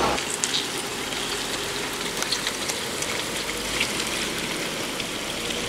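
Steady rain falling on pavement and parked vehicles, a constant hiss with scattered small drop ticks.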